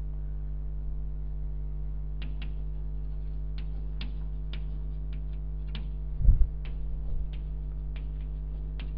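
Chalk clicking and tapping against a blackboard as writing goes on, short sharp clicks every fraction of a second, over a steady mains hum. Two dull low thumps come about six and seven seconds in, the first the loudest.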